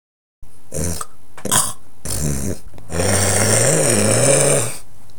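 A person's low, drawn-out vocal sound with a wavering pitch, lasting nearly two seconds, after a few short breathy noises.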